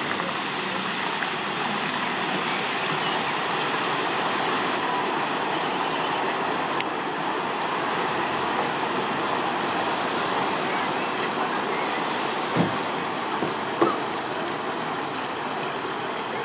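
Steady rushing hiss of a heavy downpour and floodwater in the street, with two brief sharp knocks near the end.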